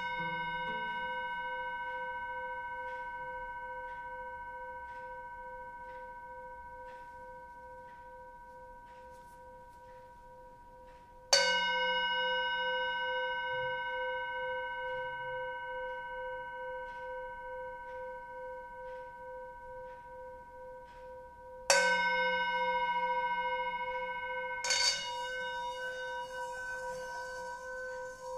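Brass singing bowl ringing and slowly fading after a strike with a wooden mallet, its tone wobbling slowly. It is struck again about 11 seconds in and again about 22 seconds in. Near the end the mallet is rubbed around the rim, making the bowl sing with a pulsing tone.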